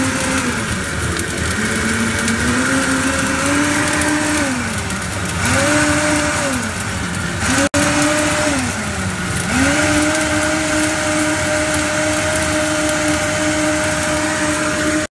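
Optimum G2.6 high-speed blender running its preset fruit program on a smoothie. The motor's pitch drops and climbs back several times as the program changes speed, then holds at high speed and stops at the end.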